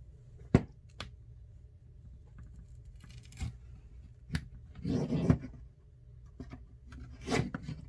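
A few sharp clicks and short scrapes of a tool being worked into the seam between an iPhone XR's screen and frame to start prying the display open.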